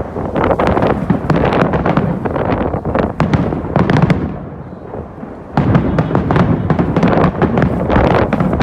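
Fireworks bursting in quick succession, a dense run of bangs and crackles that eases off briefly just past the middle, then comes back loud.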